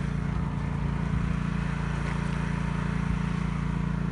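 A steady motor hum, a low even drone that does not change.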